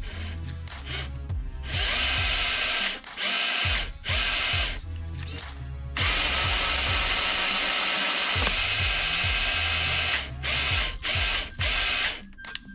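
Electric drive motor and gearbox of a 1/12-scale RC car whirring as the throttle is applied, wheels spinning freely in the air. The whir comes in several sudden on-off bursts, with one long run of about four seconds in the middle.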